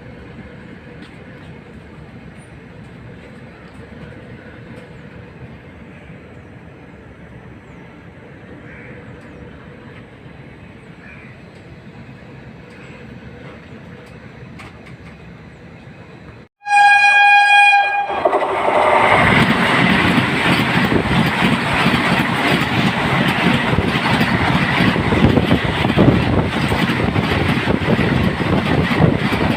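Faint steady background at first; a little past halfway an express train's horn sounds once for about a second, and the train then runs past close by, loud and continuous.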